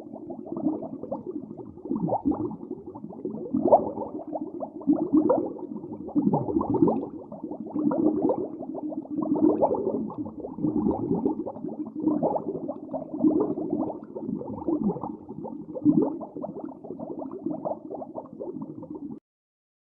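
Underwater ambience: dull, muffled bubbling and gurgling that swells and fades irregularly. It cuts off abruptly about a second before the end, leaving silence.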